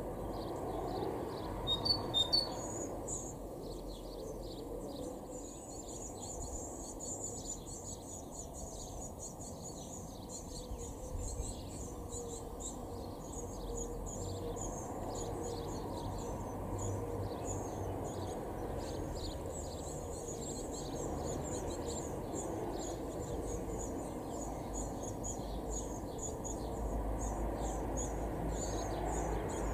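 Great tits calling around a nest box: a few sharp chirps about two seconds in, then a long run of rapid, thin, high-pitched calls, over a steady low background rumble.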